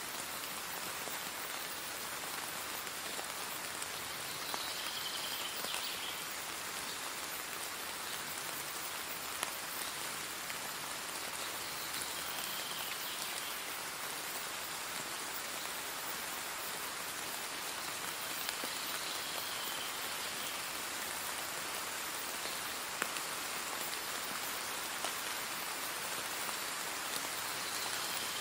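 Steady rain: an even hiss with an occasional louder drop tick.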